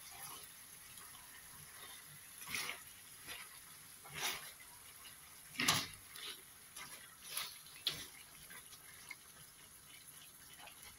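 A spatula stirring chicken pieces in a thick spiced sauce in a stainless steel pan: several wet scraping strokes at uneven intervals over a faint steady hiss.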